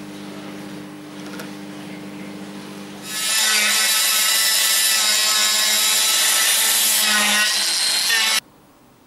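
A small angle-head rotary tool (mini angle grinder) grinding a disc into the end of a laminated pine bow piece: a loud, steady, high-pitched grinding whine with the rasp of abraded wood. It starts about three seconds in, after a low steady hum, and cuts off abruptly about a second before the end.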